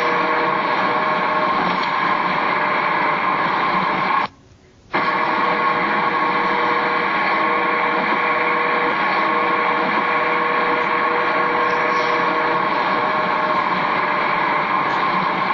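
Tyres droning on the deck of the I-75 Caloosahatchee Bridge: a steady, loud 'errrrrrrrrrr' with a pitched hum running through it. It drops out for under a second about four seconds in, and cuts off suddenly at the end.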